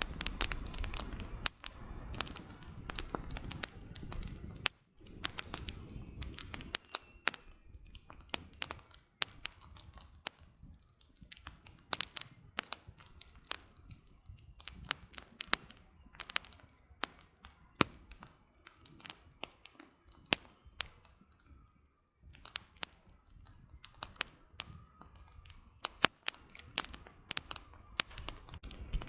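Campfire crackling: burning firewood giving off irregular sharp snaps and pops over a soft hiss of flame. The hiss is fuller in the first few seconds, then the pops stand out more sparsely.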